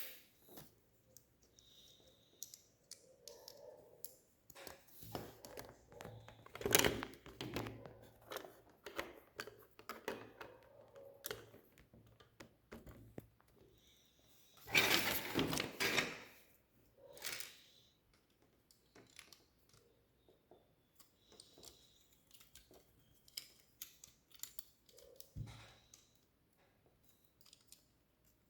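Plastic Lego pieces being handled and snapped together: a run of small clicks and taps, with two louder spells of rattling, about seven seconds in and again around fifteen seconds in.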